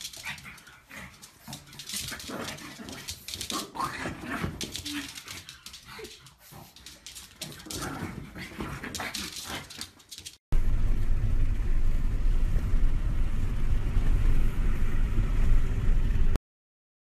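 A pug scrabbling and digging at a padded fabric dog bed: a fast, irregular run of scratching and rustling. About ten seconds in it gives way to a much louder, steady low rumble that lasts about six seconds and then cuts off.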